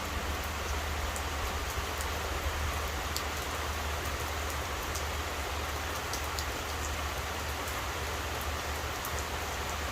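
Steady rain falling, an even rushing hiss with scattered sharp drip clicks close by.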